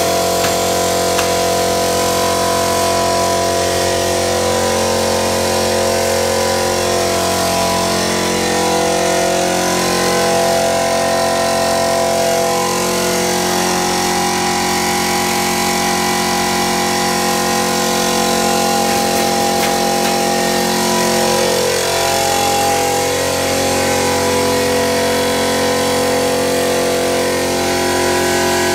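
Electric drive motor of a metal-detector conveyor belt running steadily, a constant mechanical hum made of several held tones that waver slightly in pitch.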